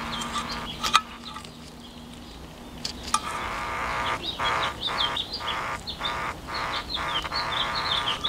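Two sharp clicks, about a second in and again about three seconds in, as the wires are touched to the speaker. A buzzing hum drops out between the clicks and returns after the second one, cutting in and out in short regular gaps. Birds chirp throughout.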